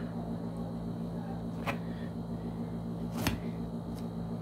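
Two sharp snips of a pair of scissors trimming loose threads on a wool coat collar, about a second and a half apart, the second louder, over a steady low hum.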